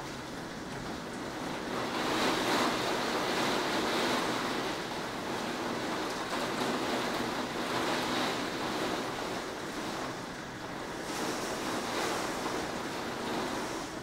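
Heavy wind-driven rain in a severe derecho thunderstorm: a steady rushing noise that rises and falls in gusts, loudest about two to four seconds in and again near the end.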